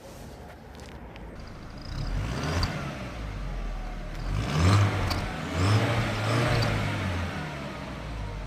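Car engine revved several times, starting about two seconds in, with a short high whistle on the strongest revs from a fake turbo whistler fitted in the exhaust.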